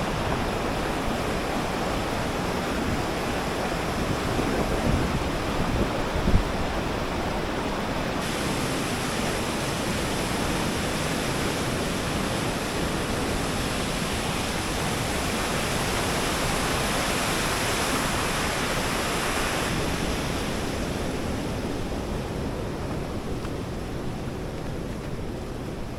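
Fast-flowing river, swollen with spring snowmelt, rushing steadily over rocks. About six seconds in there is a single low thump, and at about eight seconds the rush turns brighter and hissier before easing a little near the end.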